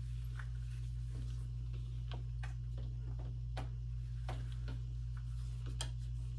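Irregular light clicks and taps as a bent glass tube is handled and pushed into rubber siphon tubing, over a steady low hum.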